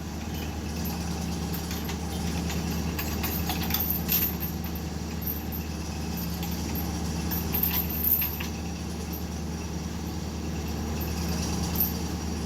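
Bobcat skid-steer loader's engine running steadily under load as it strains to pull a shipping container that does not budge, with a couple of sharp clanks about 4 and 8 seconds in.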